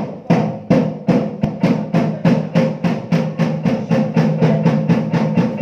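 Drums beating a steady, even rhythm of about three strikes a second, with a steady ringing tone held beneath the beats.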